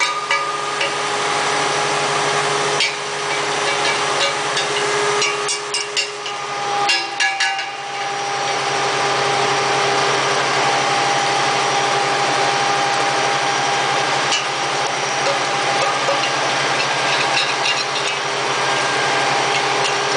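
Small pellet-making machine running steadily with an even motor hum. Knocks and clatter come in the first several seconds, and a second, higher hum joins after about seven seconds.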